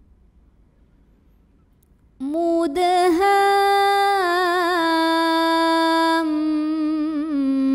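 A quiet pause, then from about two seconds in a solo voice recites the Quran in slow tartil style. The reciter draws out the word mudhāmmatān in long, ornamented held notes.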